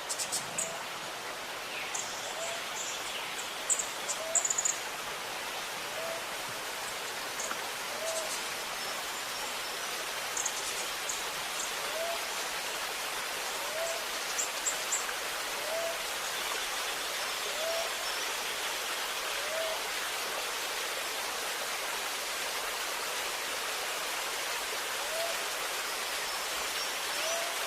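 Steadily running, gurgling water with forest birds: quick high chirps come in short clusters, mostly in the first half. A low, short upward call repeats about every two seconds throughout.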